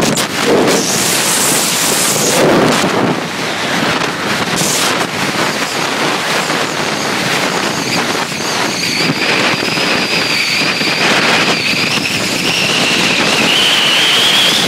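Wind rushing and buffeting on the microphone from a moving truck, with the truck's road noise underneath. From about halfway through, a thin high whine comes in and slowly rises in pitch.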